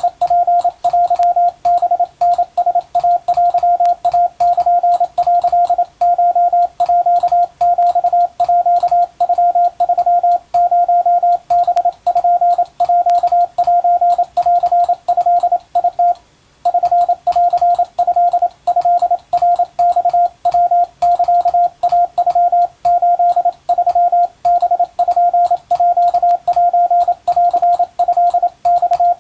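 Morse code as a single keyed tone: quick runs of dots and dashes with short breaks between groups and one longer pause about halfway, telegraph practice text in Japanese wabun code.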